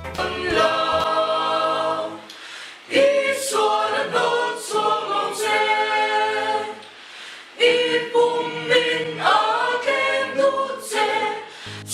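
Mixed choir of men and women singing a cappella, in phrases with short breaks about two and a half and seven seconds in.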